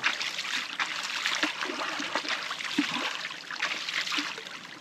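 Water trickling and splashing with irregular small splashes as a freshly plucked chicken is washed and handled in it.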